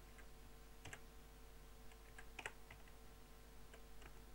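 Faint computer keyboard keystrokes, a handful of separate key presses spread over a few seconds against a quiet steady hum.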